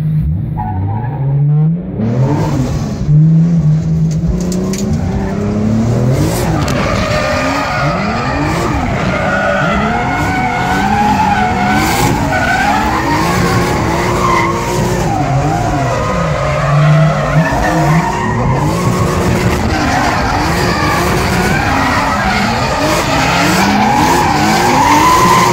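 Nissan Silvia S15's swapped 2JZ-GTE turbo straight-six, heard from inside the cabin while drifting: the revs rise and fall again and again with the throttle. From about six seconds in, the tyres squeal in a long, wavering screech.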